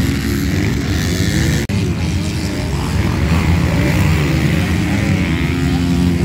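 Motocross dirt bike engines revving up and down as they race around the track, with a momentary dropout a little under two seconds in.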